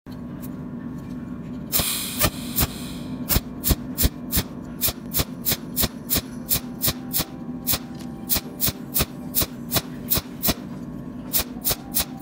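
Pulse 'cold welding' machine laying spot welds without filler wire, each pulse a sharp snap, about three a second, over a steady hum from the machine. A short hiss comes about two seconds in.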